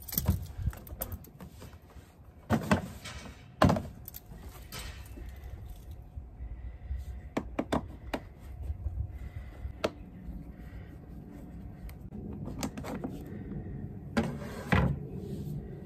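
Plastic side cover of an inverter generator being worked loose and pulled off by hand: scattered clicks, knocks and rattles, with a few louder knocks.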